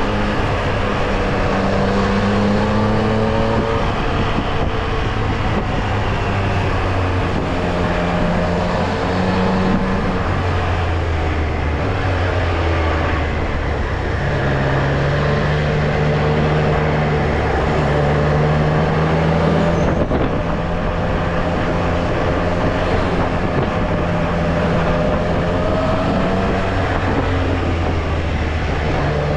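Triumph Street Triple R's three-cylinder engine running under way, its note rising and falling with changes of throttle and gear.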